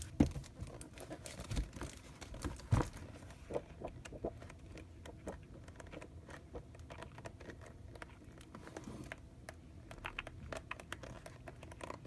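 Sheets of a Recollections 12-by-12 scrapbook paper pad being flipped one after another: paper rustling and flapping with many small ticks, and two louder knocks in the first three seconds.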